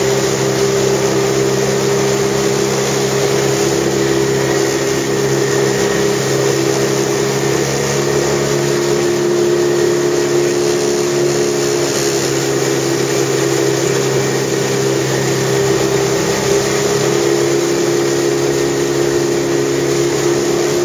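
Motorboat engine running steadily at cruising speed over a continuous rush of wind and water; its note shifts slightly a couple of times as the throttle changes.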